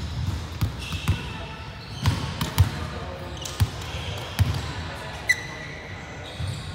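Irregular thuds of a volleyball on a wooden sports-hall floor, about seven in all, with short sneaker squeaks and players' voices in the hall.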